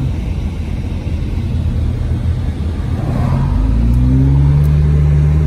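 Car engine and tyre/road noise heard from inside the cabin while driving. The engine note rises gradually over the last couple of seconds as the car picks up speed.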